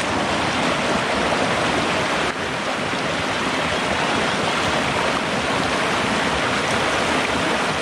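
Shallow rocky stream running over a small riffle of boulders: a steady wash of water.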